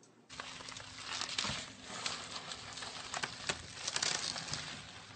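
Green plastic mesh wrap rustling and crinkling around a chihuahua, with irregular scratchy clicks as the dog scrambles across carpet. It starts suddenly a moment in.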